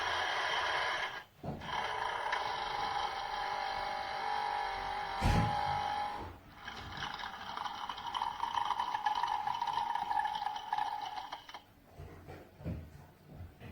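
Battery-powered Theo Klein toy Bosch espresso machine running its brewing cycle, a steady machine buzz with a thump about five seconds in. The buzz turns quieter for the last couple of seconds, then cuts off.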